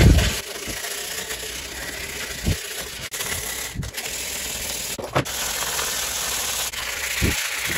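Folded 180-grit sandpaper rubbed by hand along the crack in a Ford Explorer 4.0 SOHC valve cover: a steady scratchy rasp, roughening the surface so the epoxy will have something to stick to. A few soft knocks come as the cover is handled on the bench.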